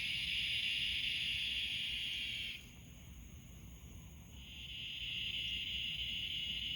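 Steady, high-pitched chorus of night insects. It stops abruptly about two and a half seconds in and swells back up about two seconds later.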